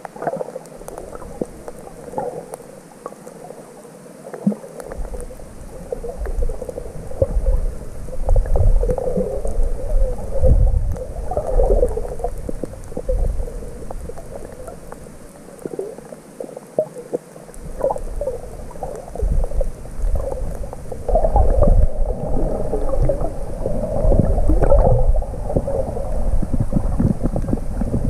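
Muffled underwater rumbling and gurgling picked up by a camera in a waterproof housing carried by a snorkeler, with low rumbles that come and go and grow busier in the second half.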